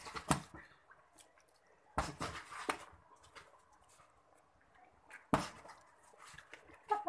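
Boxing gloves landing punches and blocks during sparring: a few sharp thuds at irregular gaps, the loudest about five seconds in.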